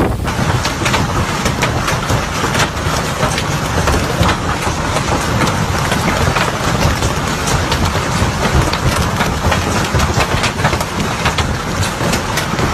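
Hailstorm: hailstones pelting down in a dense, rapid clatter of small impacts over a constant heavy low rumble.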